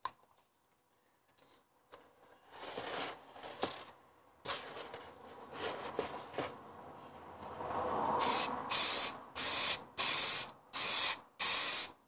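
Aerosol spray can of gunmetal grey paint hissing in six short bursts of about half a second each, spraying the plastic heater knobs. Before the spraying, quieter scraping and rustling as a gloved hand shifts the stand in the cardboard box.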